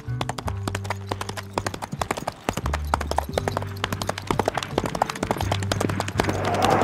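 Horse hooves clip-clopping in a quick, steady rhythm, a hoofbeat sound effect laid over music with a low bass line that steps from note to note.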